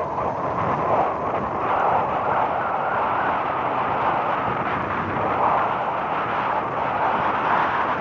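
Steady rushing noise of wind and a moving vehicle travelling along a dirt track, with no distinct engine tone.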